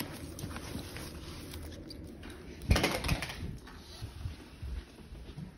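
Tidying and handling noises: books being shuffled in a fabric storage basket, with small knocks and rustles and one louder rustling bump about three seconds in.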